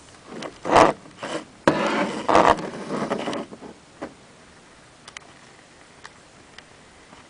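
Handling on a hard tabletop: a few knocks, then a second or two of scraping and rubbing, followed by a few faint ticks.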